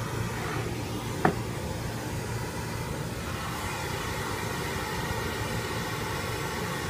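A sharp knock about a second in as a studio monitor is set down on its side on a table, over a steady rushing noise.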